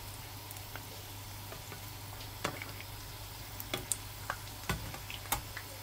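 Chicken singaras deep-frying in hot oil: a steady sizzle of bubbling oil, with a few sharp pops and clicks scattered through it.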